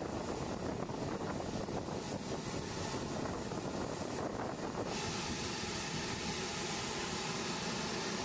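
Boeing B-52H Stratofortress's TF33 turbofan engines running on the ground, a steady rumble and hiss. About five seconds in the sound shifts to a smoother drone with a faint steady whine.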